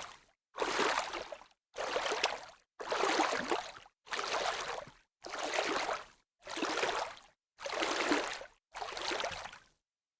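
Wooden jigsaw puzzle pieces being handled, in a run of short rustling, clattering bursts about one a second, each cut off abruptly into silence.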